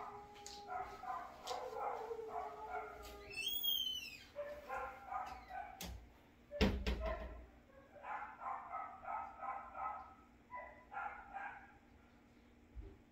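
A dog vocalizing in runs of short pitched yelping calls, with a brief high squeal about three and a half seconds in. A single loud thump comes a little after halfway.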